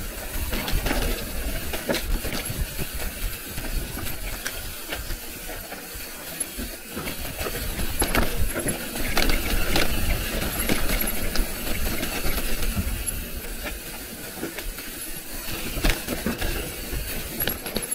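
Mountain bike being ridden over a rough trail: tyres running on dirt, with the bike's chain and parts rattling and clicking over bumps. Wind buffets the microphone with an uneven low rumble, loudest around the middle.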